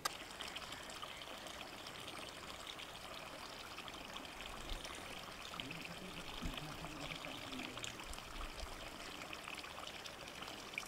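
Steady trickle of running water, with faint ticks and splashes through it.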